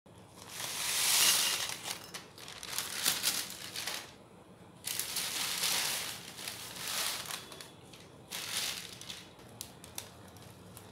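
Baking paper crinkling and rustling as crisp baked cookies are tipped off it, with light clicks of the cookies dropping onto a plate. The sound comes in several crackly bursts with short quiet gaps between them.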